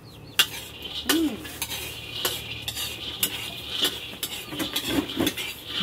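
Metal spatula stirring and scraping red beans in a wok over a wood fire, with frequent sharp clinks of the spatula against the pan over a steady hiss.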